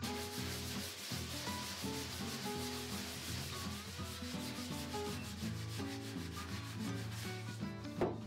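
Hand sanding of cured filler over a crack on a plywood boat hull with a sanding block: steady scratching of sandpaper, over background music, with a short knock near the end.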